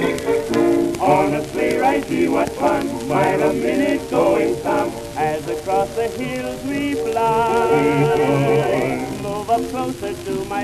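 Music from a 1913 acoustic-era 78 rpm shellac record of a male quartet with orchestra accompaniment, playing with the disc's surface crackle and hiss underneath. Several held, wavering notes sound together in the latter half.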